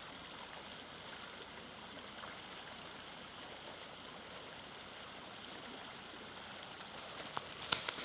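Small stream flowing, a steady rush of water. Near the end come a few sharp clicks and rustles.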